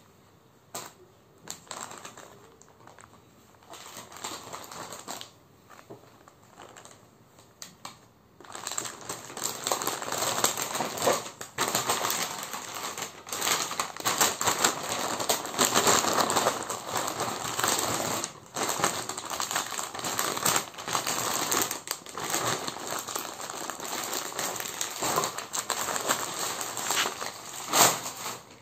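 Crinkling and rustling of plastic packaging and cloth as folded garments are handled: soft, scattered rustles at first, then loud, continuous crackling from about a third of the way in.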